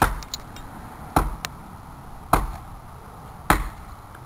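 Axe chopping into a tree, four heavy strokes about a second apart.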